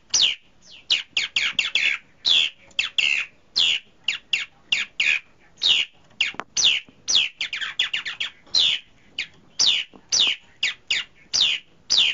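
White-browed laughingthrush calling: a steady stream of short, sharp notes, each sweeping quickly downward, about two or three a second, now and then bunching into quick runs.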